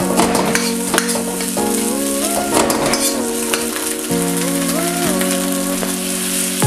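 Fried rice sizzling in a hand-forged carbon steel wok, with frequent clicks and scrapes of a metal spatula against the pan as it is stirred, over background music.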